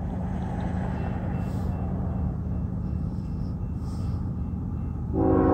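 Low steady rumble of an approaching Norfolk Southern diesel freight train. Near the end the lead locomotive's horn starts sounding, suddenly and loudly.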